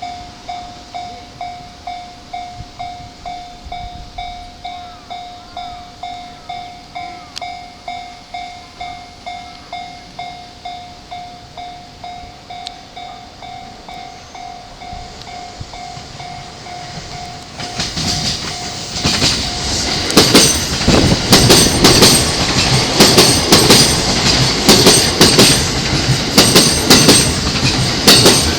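Japanese level-crossing warning bell ringing in an even rhythm of about two strokes a second. About two-thirds of the way in, a JR East E235-series electric train arrives and passes, much louder, with its wheels clattering over the rail joints and drowning out the bell.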